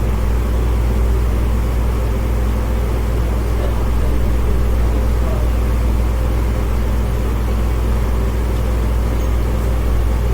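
A steady, low mechanical hum that holds even throughout, with no clear strikes or changes.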